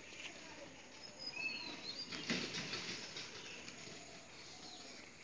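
Outdoor rural ambience: a few short, high bird chirps about a second and a half in, and a brief rustling noise a little after the middle.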